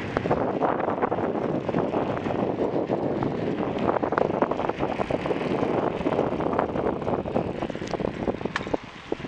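Wind rushing over the microphone of a camera mounted on a moving mountain bike, with continuous rattling and knocking from the bike and its loose camera mount as it rolls over the road.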